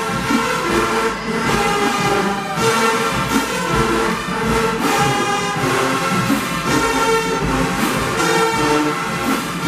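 Marching band playing: massed brass holding loud chords over a steady drum beat.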